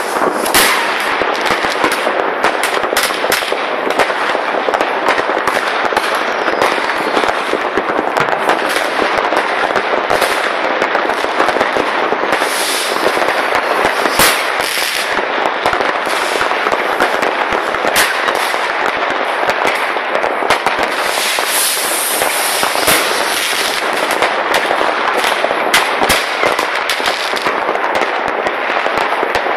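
Many fireworks rockets and firecrackers going off at once, a dense, unbroken crackle of overlapping bangs, with a few louder bangs standing out.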